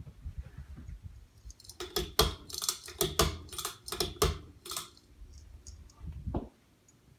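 A quick run of about a dozen sharp clicks and knocks over about three seconds, preceded by low rumbling handling noise and followed by a single low thump.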